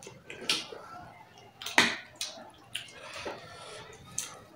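Close-up wet eating sounds: slurps from a spoon, lip smacks and chewing in a series of short sharp bursts, the loudest about two seconds in.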